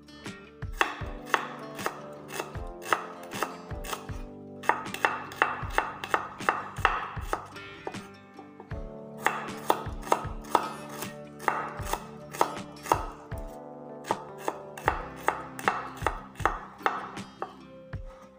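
Kitchen knife slicing shallots and chillies on a wooden cutting board: quick, uneven taps of the blade on the board, in runs of several a second broken by brief pauses.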